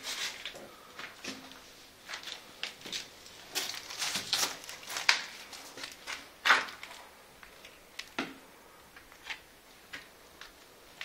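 Footsteps crunching over rubble and debris, with irregular sharp knocks and clicks; the loudest come about five and six and a half seconds in.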